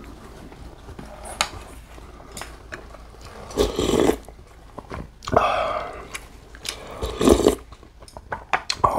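Loud slurps of beef and radish soup (sogogi muguk) taken from a spoon, three of them about 3.5, 5 and 7 seconds in, with quieter chewing between.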